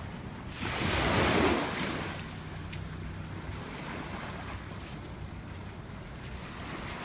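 Small waves lapping on a sandy beach, with wind on the microphone. A louder rush of noise swells up about a second in and fades over the next second.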